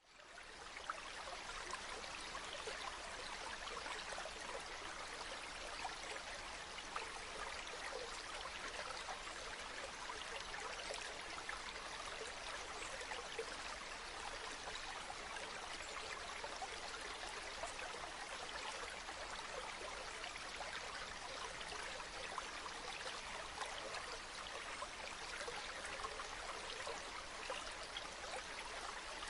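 Mountain river flowing over stones, a steady bubbling rush of water with many small splashes and gurgles; it fades in over the first second.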